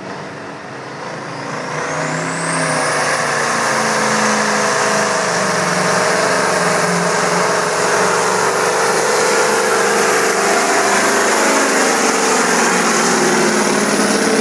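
Mack Superliner's E9 V8 diesel engine at full power pulling a sled, growing louder over the first three seconds as it launches and then running steady and loud. A high whine rises over the first couple of seconds and then holds.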